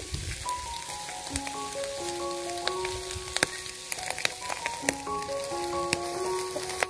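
Chili-marinated armored catfish sizzling on a wire rack over charcoal, with sharp pops here and there. Background music with a melody of held notes plays over it.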